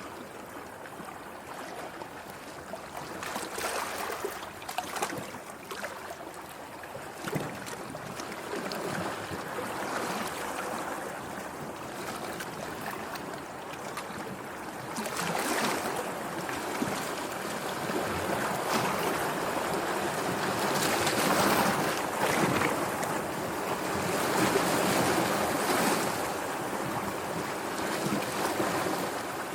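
Sea waves breaking and washing ashore, a continuous rushing noise that surges and ebbs, growing louder about halfway through.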